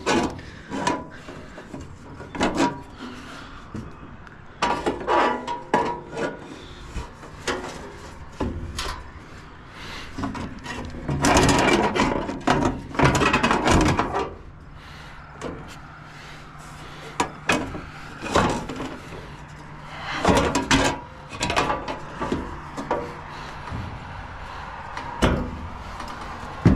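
Irregular clunks, taps and scrapes of hands working over a grain dryer's electric motor and metal housing, with longer, louder rubbing stretches in the middle.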